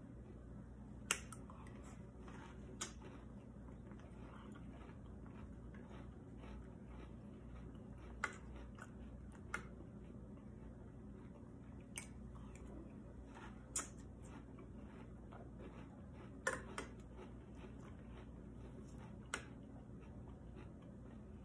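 Metal spoon clinking against a ceramic cereal bowl while scooping, about nine sharp clinks at irregular intervals a few seconds apart, over faint chewing of cereal.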